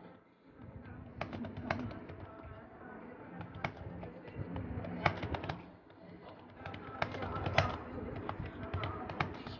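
Typing on a computer keyboard: uneven runs of sharp key clicks with short pauses, over a steady low hum.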